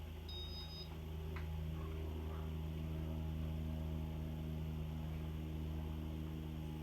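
A 1992 Casablanca Spirit of Saturn ceiling fan's motor hums steadily and rises in level over the first couple of seconds as it steps up from speed 1 to speed 2. A short high electronic beep sounds just before the hum rises.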